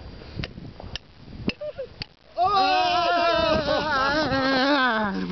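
Four sharp clicks about half a second apart, then from about two and a half seconds in several men yell loudly together, one long wavering cry that sinks in pitch at the end.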